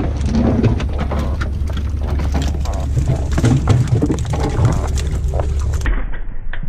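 Rain pattering in many sharp drops, over a steady low rumble of wind buffeting the microphone. The sound changes abruptly near the end, after an edit.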